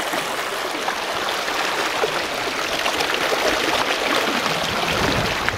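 Shallow seawater washing over and around rocks: a steady rush of water speckled with many small splashes.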